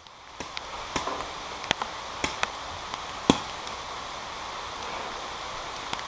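Steady hiss of heavy rain, with a few scattered sharp pops of paintball markers firing, the loudest just past three seconds in.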